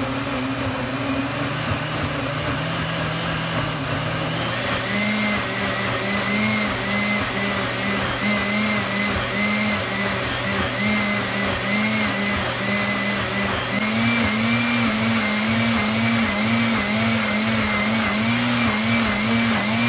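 Calphalon ActiveSense blender motor running its automatic smoothie program, blending a thick smoothie. The motor changes speed about four seconds in, then pulses up and down about once a second as the program varies the speed, a little higher and quicker near the end.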